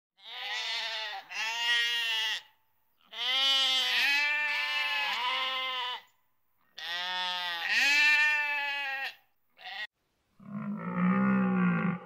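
A farm animal bleating: long, wavering calls in three bouts with short gaps between them. About ten seconds in, a different, lower-pitched sound takes over.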